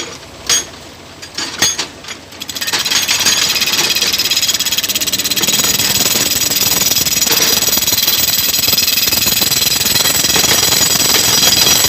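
A few short knocks, then about two and a half seconds in a pneumatic rock drill, run off a tractor-mounted air compressor, starts up and hammers steadily and fast into hard quarry rock.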